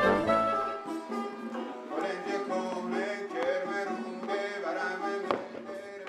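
Plucked long-necked lute picking a melody in live instrumental music, with a single sharp knock about five seconds in.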